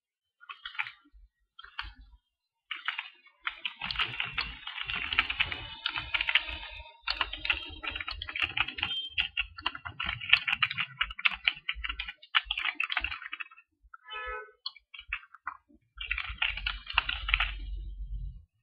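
Computer keyboard typing: rapid keystrokes in bursts, with short pauses between runs.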